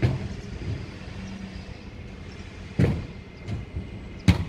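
Waste collection truck working in the street: its engine running steadily, with three loud bangs, one at the start, one about three seconds in and one just before the end.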